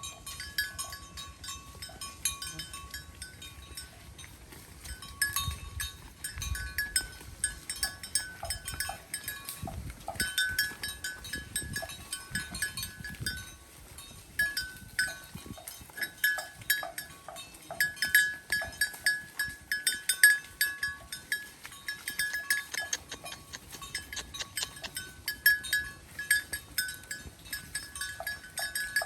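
Cowbells on grazing cattle clanking irregularly, several strikes a second at times, their ringing tones overlapping.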